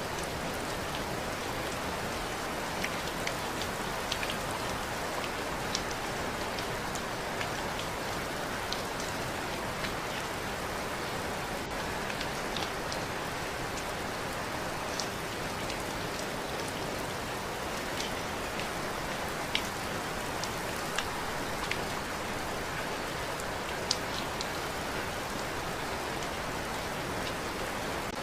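Steady rainfall, an even hiss of rain on a surface with scattered sharp ticks of single drops.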